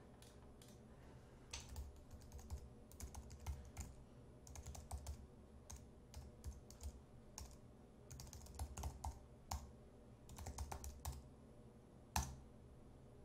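Typing on a computer keyboard: irregular runs of keystrokes with short pauses, then a single sharper key click near the end.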